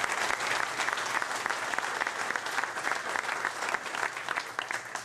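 Audience applauding: many hands clapping in a dense patter that gradually dies down near the end.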